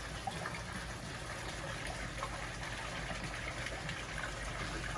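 Koi pond water running with a steady trickle, over a faint low steady hum.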